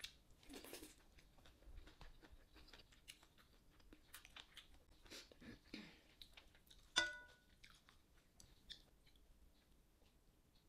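Quiet close-up chewing and small mouth sounds of someone eating. About seven seconds in there is a single sharp clink of tableware that rings briefly.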